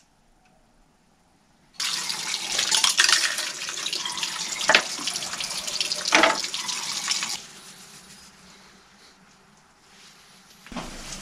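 Water from a tap running into a small washbasin and splashing over the disassembled Bosch PSS 250 AE sander housing held under it, with a couple of knocks of the part against the basin. The water starts about two seconds in and is shut off about seven seconds in.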